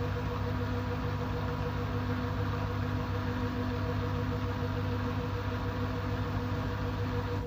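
LG F13D9NC front-loading washing machine in its final spin: the drum turning at steady speed with a constant motor hum and whine over the rush of the spinning drum.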